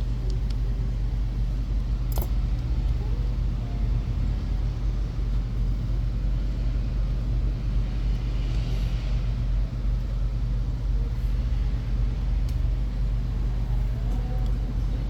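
Steady low background rumble, with a few light clicks of small gearbox parts being handled, the clearest about two seconds in.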